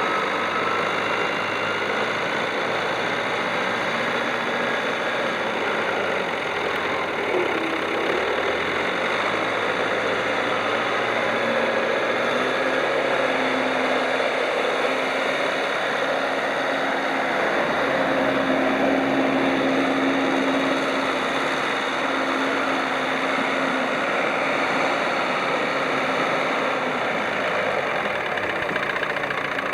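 JCB 214B backhoe loader's diesel engine running steadily, its pitch shifting a few times as the revs change.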